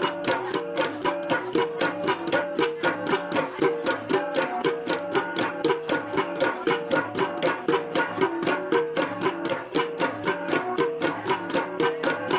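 Kalinga gong ensemble playing: several pitched gongs struck in a quick, steady rhythm of about five strikes a second, their notes interlocking in a repeating pattern.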